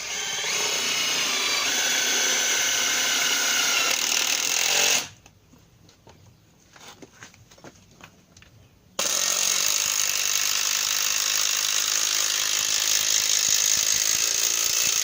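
Makita TD110D 12 V cordless impact driver drilling into a steel plate about 2 mm thick, run in two bursts of about five and six seconds with a short pause between. The motor's pitch climbs as the first burst starts.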